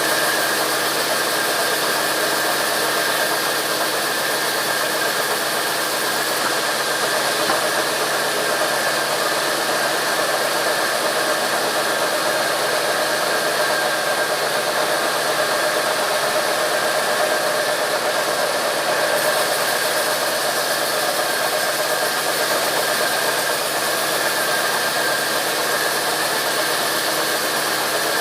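Sawmill saw running steadily, an even mechanical noise with a constant high whine.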